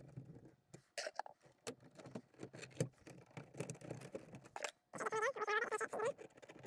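Square D QO circuit breakers being handled and pressed into a panel: scattered small plastic clicks, scrapes and rustling. A brief murmured voice about five seconds in.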